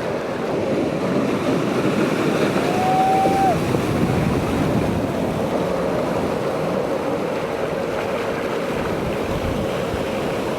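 Ocean surf rushing with wind buffeting the microphone, with a short steady tone about three seconds in.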